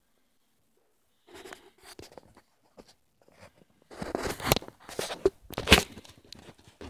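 Irregular crunching and rattling noise from a bicycle ride over a gravel forest path, coming in uneven bursts that grow loudest in the second half.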